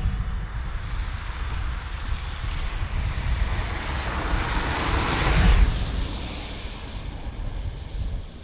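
Strong gusty wind buffeting the microphone with a heavy low rumble, while a landing jet airliner's engine noise swells to a peak about five seconds in and then fades as it passes.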